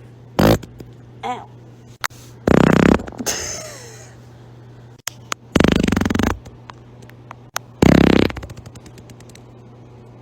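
A person farting loudly several times: a short one near the start, then three buzzing farts a couple of seconds apart, each under a second long.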